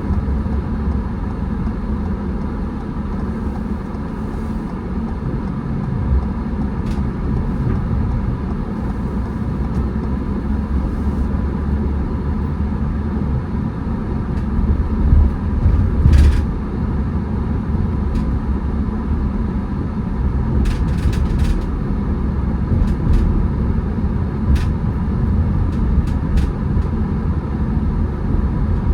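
A car driving: steady low road and engine rumble, with a few faint clicks and a brief swell in loudness about halfway through.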